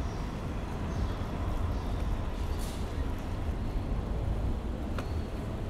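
City street traffic: cars driving past close by, a steady low rumble of engines and tyres.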